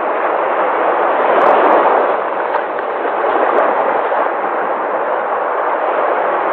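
Sea waves breaking and washing on the shore: a continuous rushing surf that swells a little about one and a half seconds in and then settles.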